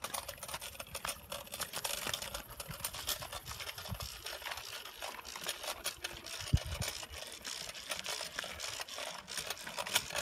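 Pedal-pump scooter in use: its mechanism and small wheels clicking and rattling irregularly over asphalt, with one heavy thump about six and a half seconds in.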